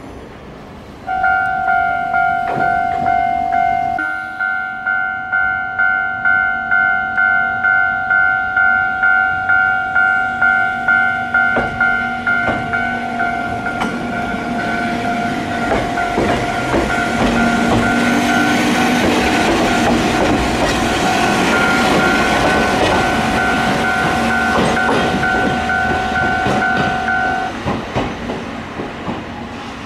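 A Japanese level-crossing alarm rings a steady two-tone clang about twice a second. A Choshi Electric Railway electric train gets under way past it, and the wheels' clatter and running noise build up through the second half. The alarm stops near the end as the train clears the crossing.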